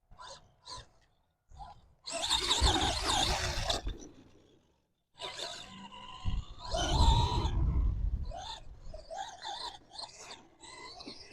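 A stock brushed-motor Arrma Gorgon RC monster truck driven in throttle bursts on dirt: the motor and gears whine and the tyres spin and scrabble. There are a few short blips, then louder runs about two seconds in and again around the middle, the loudest about seven seconds in.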